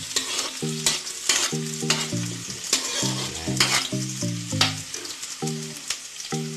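Chopped garlic and red onion sizzling in oil in a metal wok, with a metal spatula scraping and stirring against the pan about once a second. Light background music of short repeated notes plays underneath.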